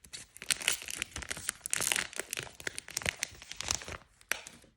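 Foil trading-card booster pack wrapper crinkling and tearing as it is pulled open by hand: a dense run of irregular crackles that stops near the end.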